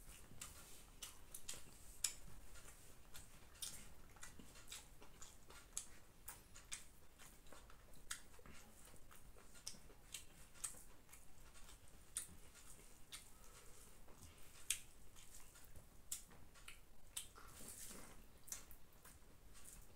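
Faint, irregular clicks and wet smacks of eating by hand: fingers mixing biryani rice on a banana leaf, and chewing.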